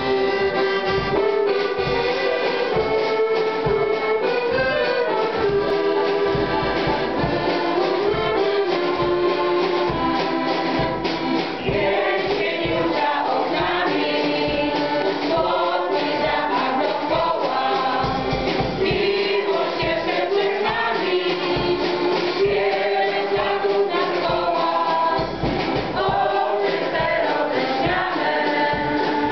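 Folk vocal ensemble of women's and men's voices singing a Polish folk song in chorus, backed by an electronic keyboard with a steady beat.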